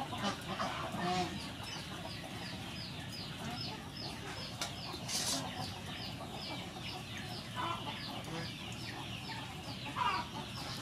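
Chickens clucking, with a short falling peep repeated about three times a second. There is a brief hiss about five seconds in.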